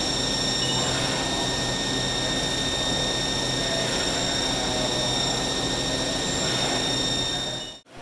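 Haas TL-1 CNC lathe running at speed with a steady high-pitched whine over a dense hiss of coolant spray. The sound cuts off abruptly near the end.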